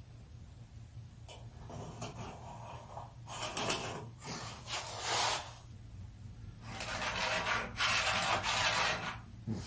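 Wood being sanded or rasped in several separate rubbing strokes, the longest near the end, while the curved edges of wooden legs are shaped.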